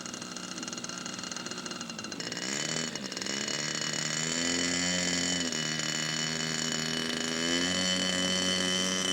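Radio-controlled scale model airplane engine running, its pitch stepping up and down with throttle changes and growing louder, getting strong about two seconds in.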